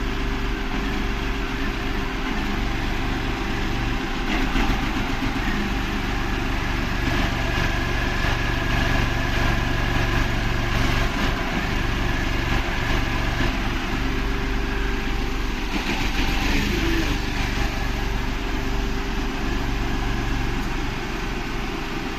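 Renault Kwid's three-cylinder petrol engine idling under air-conditioning load, running unevenly with a misfire that the owner puts down to low fuel pressure, with the third cylinder misfiring.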